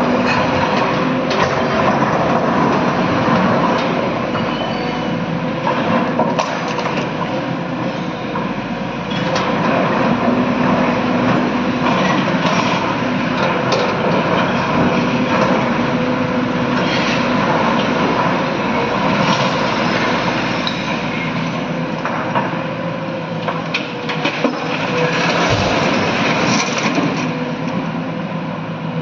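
Hydraulic excavator's diesel engine running hard with a steady hum, while its bucket scrapes and clatters through broken quarry rock, with repeated knocks of stone on steel. Near the end, rock tumbles out of the bucket into the steel bed of a dump truck.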